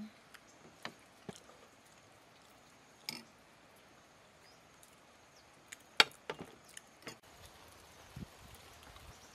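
Metal spoons clinking and scraping against plates, a handful of scattered light clicks with one sharper clink about six seconds in.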